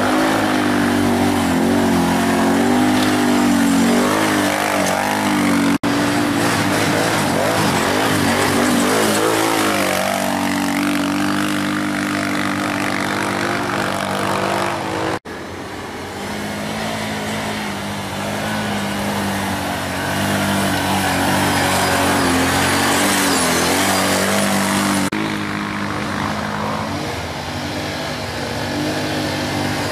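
Quad bike (ATV) engines running and revving hard as they climb a steep dirt trail, their pitch rising and falling with the throttle. The sound breaks off abruptly twice and picks up again.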